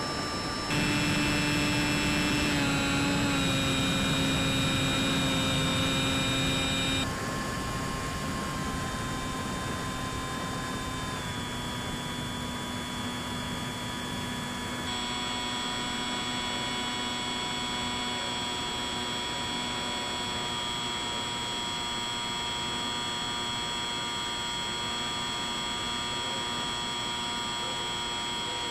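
Electric motor and propeller of a Bixler 3 RC plane whining steadily in flight, the pitch stepping up or down a few times as the throttle is changed; loudest during the first seven seconds.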